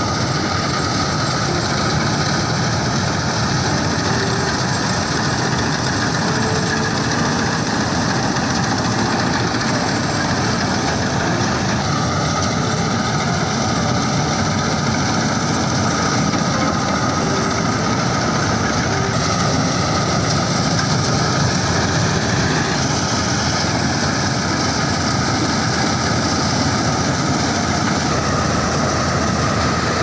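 Balkar combine harvester running steadily as it cuts and threshes rice: its engine and threshing machinery make a dense, continuous mechanical noise with a steady high whine over it.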